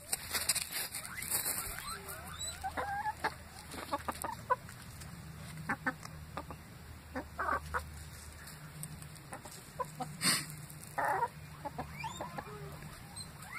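Domestic hens clucking with short scattered calls while foraging, with sharp clicks of pecking at food scraps on dry ground.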